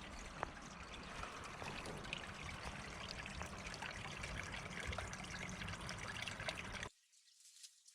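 Faint, steady trickling like running water, with a few soft ticks, cutting off suddenly about seven seconds in.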